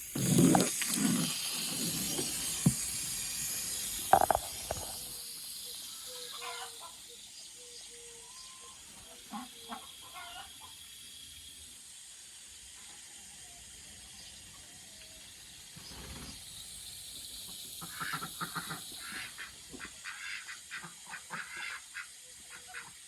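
Water from a hose rushing into a small pond, a loud hiss at first that fades away over the first ten seconds or so. Ducks quack over it, most busily near the end.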